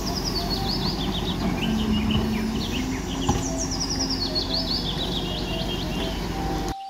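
Hyundai wheeled excavator's engine running steadily as it digs, with birds singing runs of descending high chirps over it. Both cut off abruptly just before the end.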